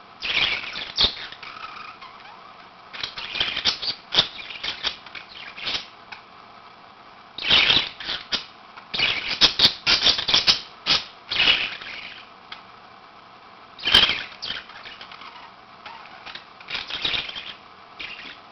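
Two budgerigars chirping and chattering back and forth in short bursts of rapid chirps with pauses between them.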